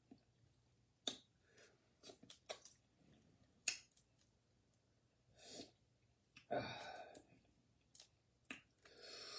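Faint eating sounds at a boiled crawfish meal: a few scattered small clicks and cracks of shell, with a couple of short breathy noises, one about two-thirds of the way in and one near the end.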